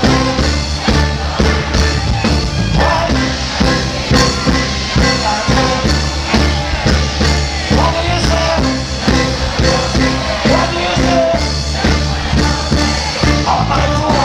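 Loud live reggae band playing a steady beat: bass, drums, electric guitars and keyboards. A voice sings into the microphone near the end.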